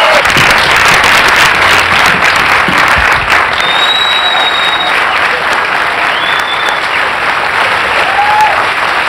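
An audience applauding loudly: dense, steady clapping that eases off slightly towards the end.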